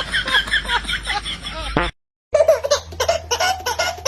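Laughter: a person laughing in rapid, evenly repeated pitched syllables, cut off suddenly about two seconds in. After a short silence, more laughing voices start again over a steady low hum.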